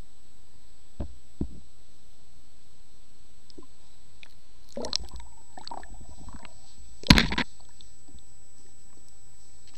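Underwater sound picked up through a SeaLife camera's housing: muffled knocks and gurgling, sloshing water as the camera is moved, with two small knocks about a second in, a stretch of gurgling around five to six seconds, and a louder thud-like burst about seven seconds in. A faint steady high whine runs under it.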